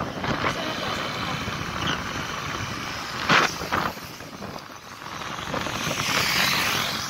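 Motorcycle on the move through town traffic: wind and road noise over the engine, with a short loud burst about three seconds in and a rushing swell near the end.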